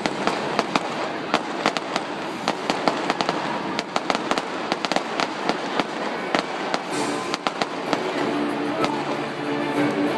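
Fireworks show bursting in quick succession: sharp bangs and crackling pops several times a second. Music with steady held notes comes in about seven seconds in.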